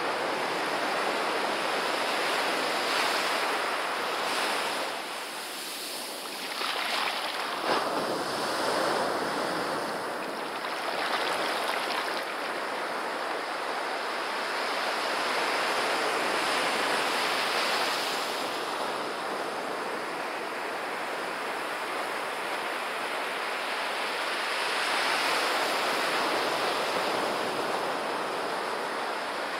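Small ocean waves breaking and washing up a sandy beach at the water's edge, a steady surf wash that swells and eases with each wave.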